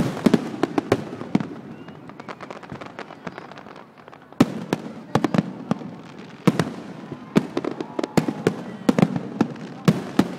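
Fireworks display: shells bursting in quick clusters of sharp cracks and bangs, easing off for a couple of seconds after the opening flurry, then starting again with a sudden loud bang about four and a half seconds in.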